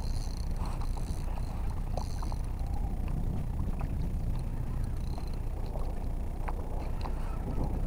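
Kayak out on the water: a steady low rumble of wind on the microphone, with small water splashes and scattered light clicks against the hull.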